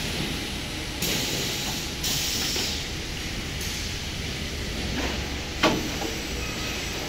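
Automatic packaging-line machinery for ceiling boards running with a steady low hum. About a second in there are two stretches of hiss, and a sharp metallic clank comes about five and a half seconds in.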